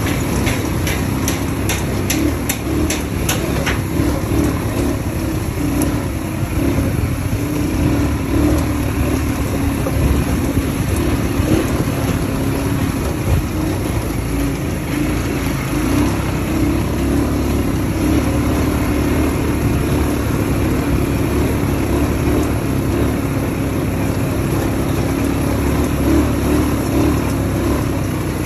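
An ATV engine running steadily under way, with a quick run of sharp ticks in the first few seconds.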